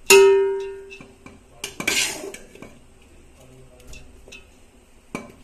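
A metal spoon strikes the rim of a metal cooking pot with a loud ringing clang just after the start, then scrapes and clatters against the pot about two seconds in as cooked basmati rice is spooned in, with a few light taps after.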